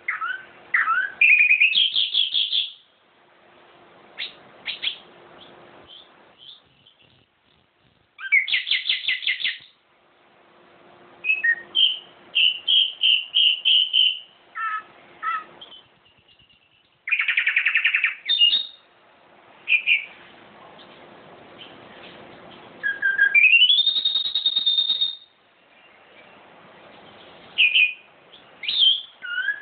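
Caged songbird singing in short phrases of rapid trills, chirps and whistles, separated by pauses of a second or two.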